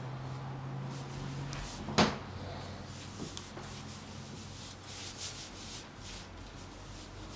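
Soft rubbing and rustling of hands on skin and clothing as a chiropractor feels along a patient's back and neck, with one sharp knock about two seconds in and a few faint clicks after it. A low steady hum stops just before the knock.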